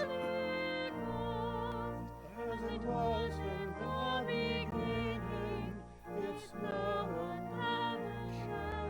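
Classical-style singing with strong vibrato over instrumental accompaniment that holds low bass notes, as a sung response in a church service.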